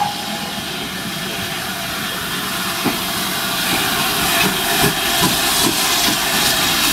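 GWR 42xx-class 2-8-0 tank engine No. 4270 passing close by with its carriages: a steady hiss of steam that grows louder as it draws near, with irregular clanks and knocks from about three seconds in.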